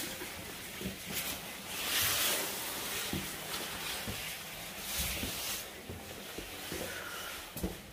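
Rustling and scuffing of a person moving through a narrow cave passage, with irregular bursts of hiss-like noise and a few soft knocks.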